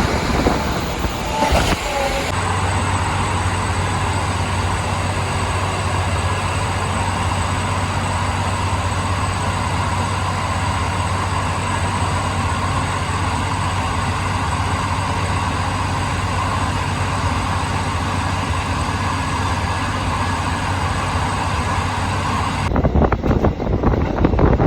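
KiHa 40 diesel railcar running along the line: a steady engine hum with a constant rush of rail and running noise. Near the end the sound turns rougher and gustier, like wind buffeting the microphone.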